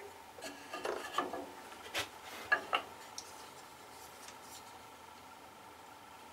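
A handful of light knocks and clicks in the first three seconds as a marking knife, try square and wooden workpiece are handled and set in place, then faint scraping as the knife is drawn along the square to score a line across the wood.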